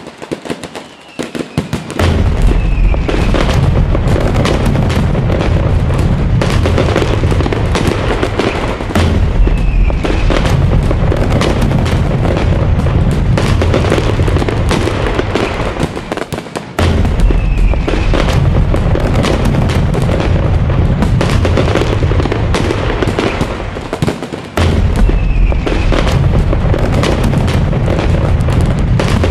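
Fireworks display: a loud, dense barrage of booming bursts running almost without a break and dropping off briefly twice. Scattered crackling pops come just before the barrage sets in.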